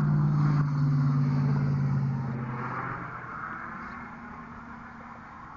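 A car driving past on the road, its engine hum loudest at the start and fading away over about three seconds as it moves off.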